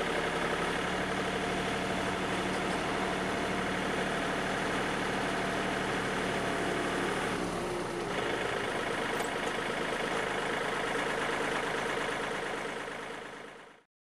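Yanmar CT226 compact tractor's diesel engine running steadily, with its raised rotary tiller spinning free in the air. The sound fades out near the end.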